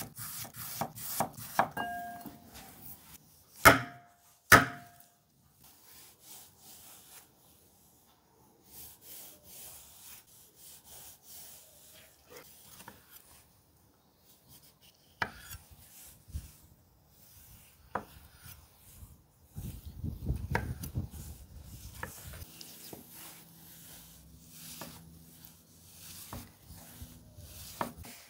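Chef's knife chopping onion and then tomato on a wooden cutting board: irregular knocks of the blade on the wood and soft cutting sounds. Two loud sharp knocks about four seconds in are each followed by a short ringing tone.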